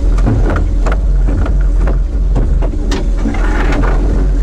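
Steady low rumble of wind and water around a small fishing boat at sea, with scattered sharp knocks and clicks on board.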